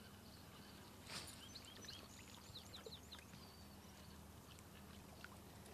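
Faint birdsong: a quick run of short chirping notes starting about a second in and lasting a couple of seconds, over a low steady hum.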